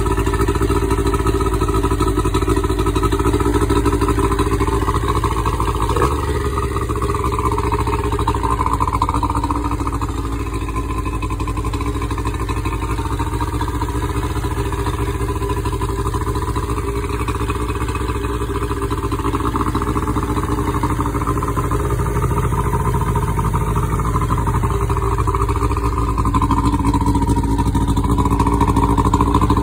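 Evinrude 60 hp two-stroke outboard engine running steadily with its cowling off, cooled by a garden hose; it gets a little louder near the end.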